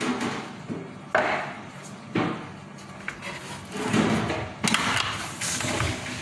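Kitchen items being handled on a countertop: a few sharp knocks and clattering scrapes, four distinct bursts spaced unevenly.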